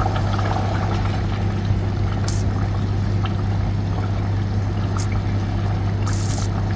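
Thick meat-and-potato curry simmering and bubbling in a pot on a gas stove as a spatula stirs it, over a steady low hum.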